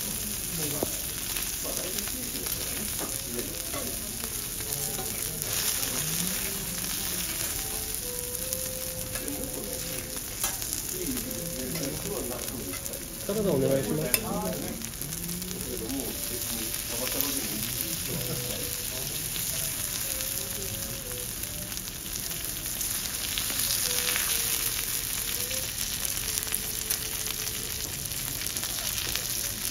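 A5 Kobe beef loin steak, cut into bite-size pieces, sizzling steadily on a teppanyaki steel griddle. A few clicks of a metal knife and fork sound on the steel, and it briefly gets louder about halfway through.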